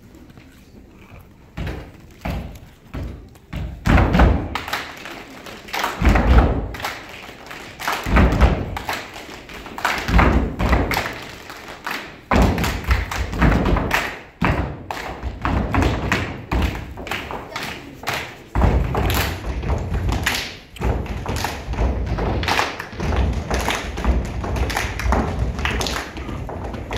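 Heavy thumps in an uneven rhythm, with taps and hand claps, keeping time for a group dance routine. They start about two seconds in and come thick and fast in the second half.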